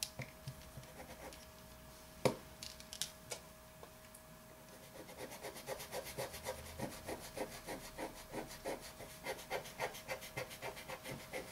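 A drawing tool scratching on paper in quick, short back-and-forth strokes, several a second, starting about five seconds in; before that only a few scattered taps and clicks.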